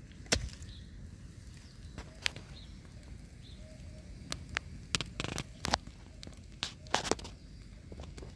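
A fixed-blade camp knife stabbed point-first into dry, leaf-littered ground, giving one sharp knock about a third of a second in, followed by scattered, irregular crackles and snaps.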